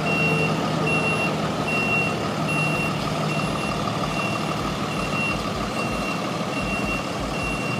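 A truck's reversing alarm beeping, one high steady beep about every second, repeated through, over the vehicle's running engine.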